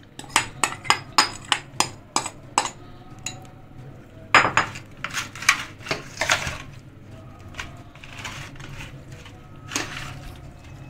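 Metal spoon tapping and scraping against a glass bowl, knocking thick marinade paste out onto chicken, with a quick run of taps in the first few seconds. Then a few louder scrapes and clinks of the spoon in a steel bowl as the chicken pieces are mixed through the marinade.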